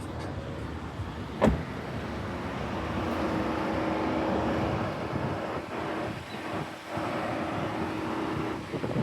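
Car engine running while air is bled from its turbocharged cooling system, with a sharp knock about a second and a half in and a steady hum from about three seconds in until near the end.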